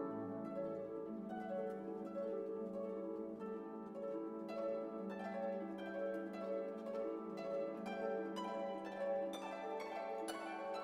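Instrumental background music: a melody of short notes over a held low note.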